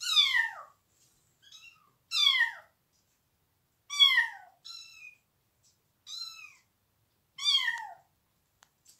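Tiny kitten, about 400 g, meowing over and over: about seven short, high-pitched cries, each falling in pitch, a second or so apart. The uploader takes it for the kitten calling for its mother.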